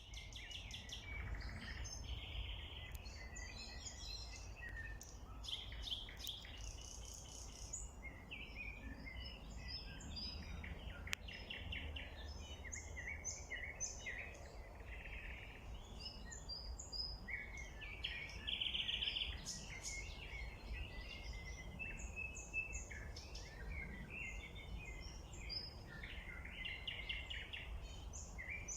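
Several birds singing and calling at once, a dense chorus of overlapping short notes and trills, over a steady low rumble.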